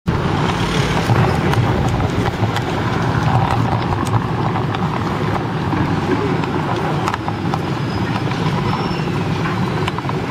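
City street traffic: a steady rumble of passing vehicles, with scattered sharp clicks and knocks.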